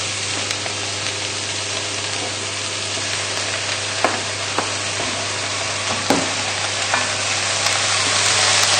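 Mushrooms, onion and carrots sizzling in butter and oil in a casserole pot. About four seconds in, raw beef chunks are scraped off a chopping board into the pot with a wooden spoon, with a few sharp knocks, and the sizzling gets a little louder near the end.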